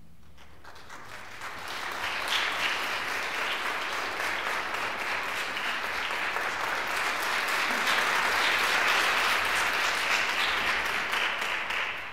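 Audience applauding, building up over the first couple of seconds and dying away quickly near the end.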